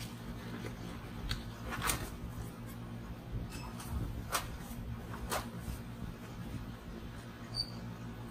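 Blue nitrile gloves being pulled on and snugged over the hands: several sharp rubbery snaps and a short squeak near the end, over a steady low hum.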